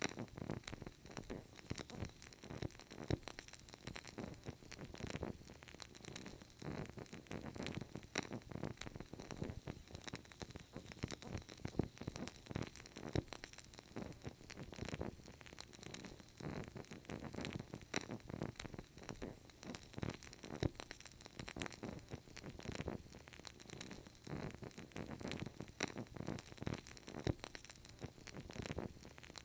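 Burning candle crackling: many small, irregular pops from the wick over a faint steady hiss.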